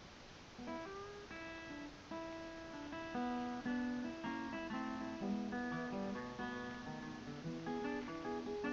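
Background music: a plucked acoustic guitar playing a run of separate notes, starting about half a second in.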